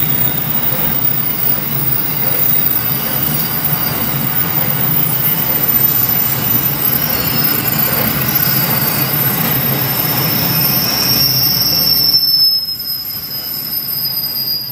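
Freight train's container wagons rolling past on a curve, a steady rumble and clatter of wheels under high wheel-squeal tones from flanges grinding the rail on the bend. About twelve seconds in, the rumble drops away as the last wagons pass, leaving the thin squeal gliding slightly lower.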